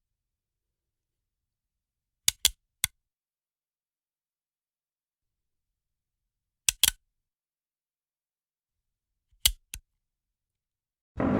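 .50 calibre machine gun being cocked and dry-fired: three groups of sharp metallic clacks a few seconds apart, each a quick pair or trio of strokes, with silence between.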